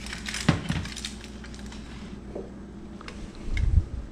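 Knocks and clinks as a foil-lined baking dish of fish is lifted off the stovetop and set on the rack of an open electric oven, with a sharp knock about half a second in and a louder low thump near the end.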